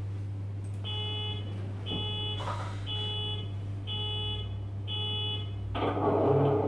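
Sound decoder of a Hattons OO gauge Class 66 model locomotive playing through its onboard speaker: a steady low diesel hum under five beeps about a second apart, then a louder engine rumble comes in near the end.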